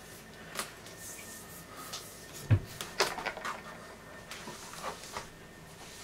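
Scattered plastic clicks and knocks as the black screw-on lid of a plastic pressure barrel is handled and turned on its thread, with one heavier thump about two and a half seconds in.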